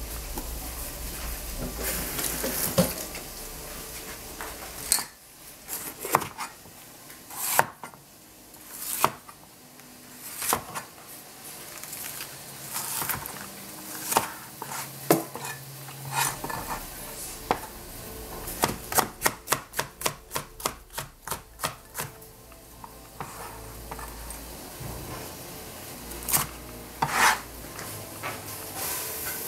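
Cleaver chopping a red bell pepper on a plastic cutting board: sharp single knocks of the blade striking the board every second or two, with a quick run of chops about four a second around two-thirds of the way through.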